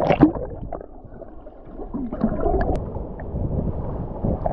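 Sea water splashing and sloshing around a swimmer in the surf, with a loud splash at the start, a brief lull about a second in, then uneven sloshing.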